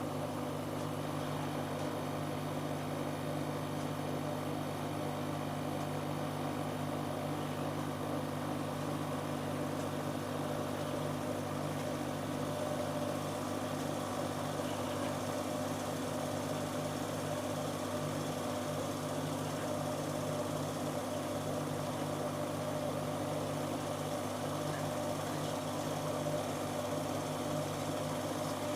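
Siemens Siwamat 7163 washing machine running with a steady motor hum and no change in speed.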